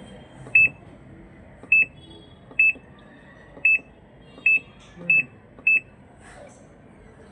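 Top-load washing machine control panel beeping: seven short, high beeps at uneven spacing, the key-press beeps of its buttons being pressed.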